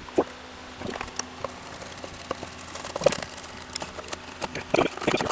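Irregular clicks and clinks of a nut driver and screwdriver working at rusted screws in a metal fire pit burner pan.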